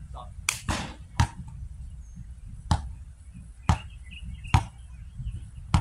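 A basketball shot clangs off the hoop about half a second in, and the ball then bounces and is dribbled slowly on a hard outdoor court, about one sharp bounce a second. Wind rumbles on the microphone throughout.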